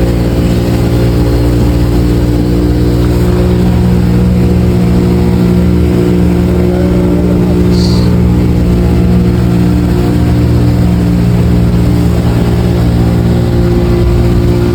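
Outboard motor of a speedboat taxi running steadily at speed, a constant engine drone with no change in pitch.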